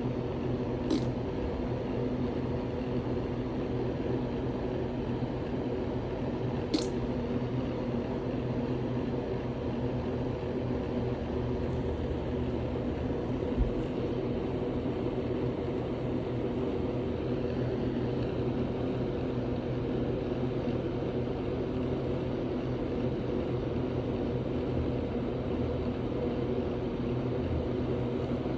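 A steady, unchanging low mechanical hum, with two faint clicks in the first seven seconds and a short low thump about halfway through.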